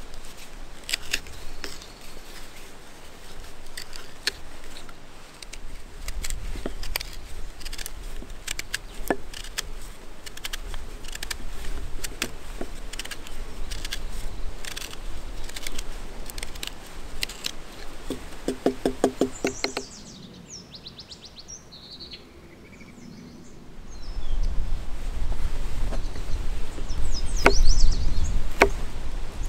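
Knife whittling green wood: irregular short scraping and cutting strokes as a blade shaves the wooden reel body. About two-thirds in the strokes stop for a few seconds and a few bird chirps are heard, then louder, sharper strokes follow as a knife carves a small plug from dry wood.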